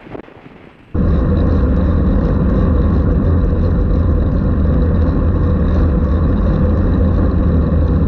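Loud, steady rumble of wind buffeting a bicycle-mounted camera's microphone while riding, with road noise under it. It cuts in abruptly about a second in.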